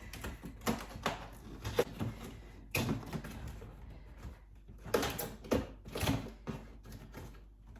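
Cardboard box and packaging being handled and opened: irregular knocks, taps and scrapes with some rustling.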